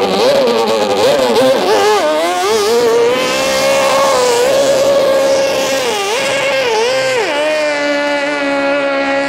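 Two-stroke racing outboard on a small hydroplane, revving in uneven blips right after starting and then held at a steady high-pitched howl as the boat takes off. About seven seconds in the pitch dips and settles lower as the engine keeps running.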